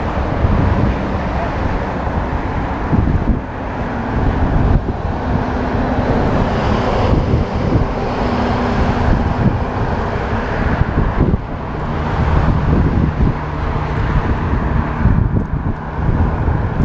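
Wind buffeting a bicycle-borne GoPro's microphone while riding, mixed with car traffic on the road alongside; a steady loud rush with faint engine hums.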